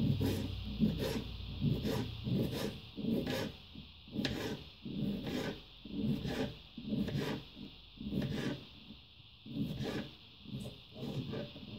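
A kitchen knife slicing a bell pepper into strips on a plastic cutting board, a steady run of short cuts at about two a second, each ending with a tap of the blade on the board.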